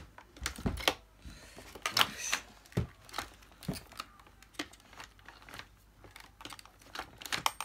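Irregular plastic clicks, knocks and rattles from a Dyson DC15 Animal upright vacuum being handled upside down, its floor-head release pedal and brush head worked by hand.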